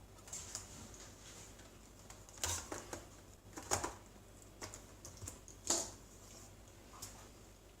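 A replacement laptop keyboard being pressed down and seated in a Toshiba Satellite A350: a series of irregular plastic clicks and taps, loudest about halfway through and again about three-quarters of the way in.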